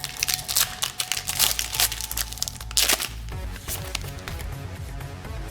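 Plastic trading-card pack wrapper crinkling and tearing as it is handled and opened for about the first three seconds, over background music with a steady bass line that carries on alone after the crinkling stops.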